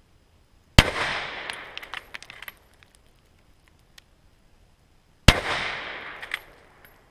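Two shots from a K98k Mauser rifle in 8mm Mauser, about four and a half seconds apart. Each sharp crack trails off in a long echo, with a few small ticks after it.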